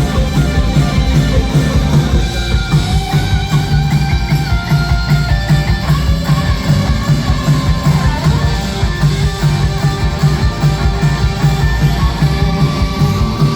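Rock band playing: an electric guitar lead with bending notes over a driving drum kit and bass.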